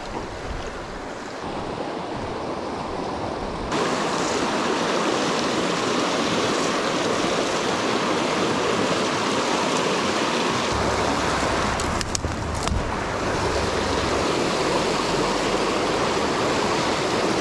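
Mountain stream running high and fast over rocks: a steady rush of water that gets louder about four seconds in.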